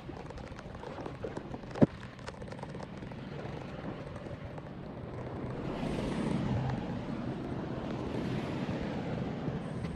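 Rain falling on shallow flood water covering a street, with a sharp click about two seconds in and a rushing noise that swells from about halfway through.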